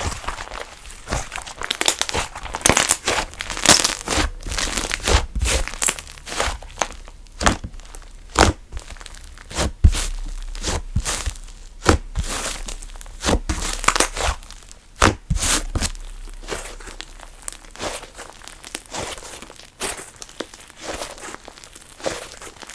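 Hands squeezing, stretching and poking slime, making a continuous run of irregular sticky crackles and pops.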